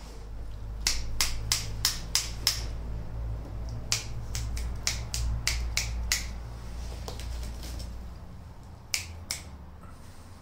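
Sharp clicks in quick runs of about three a second: six, then eight, then two more near the end, over a low steady rumble that fades out about eight seconds in.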